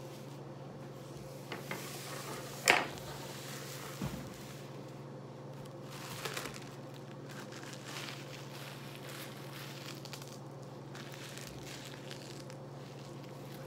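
Brown paper crinkling and rubbing on a stone tabletop under a hand pressing it down over small hard pieces, with a few taps and one sharp knock about three seconds in. A steady low hum runs underneath.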